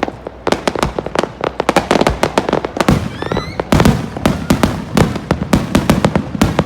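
Fireworks display: a dense, irregular run of bangs and crackles, with a brief rising whistle about three seconds in.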